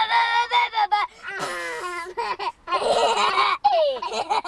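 Young children laughing hard: high-pitched giggles and squeals broken by breathy, gasping stretches.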